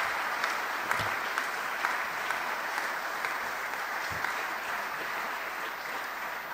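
Audience applauding: many hands clapping in a steady patter that eases off a little near the end.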